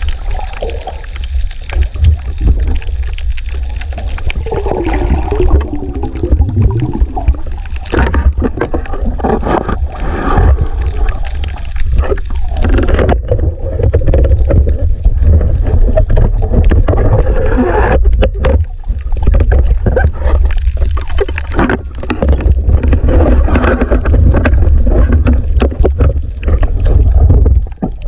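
Underwater noise picked up by a submerged camera: a heavy, steady low rumble of water and movement, with wavering bubbly gurgles and scattered sharp clicks and knocks.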